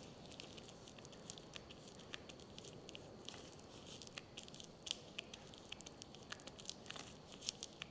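Faint, scattered sticky clicks and squelches of grease being hand-packed into a tapered roller wheel bearing, the bearing pressed down into grease on a palm and worked around.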